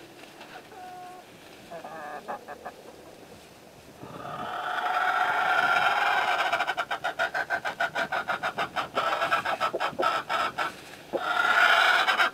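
Chickens calling: soft short clucks at first, then a loud, drawn-out call about four seconds in that breaks into a fast run of short pulses, and another drawn-out call near the end.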